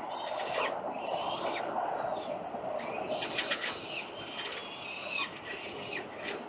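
Peregrine falcon chicks begging while being fed: a string of short, high, wavering calls, most tightly bunched about three seconds in, over a steady hum of city traffic.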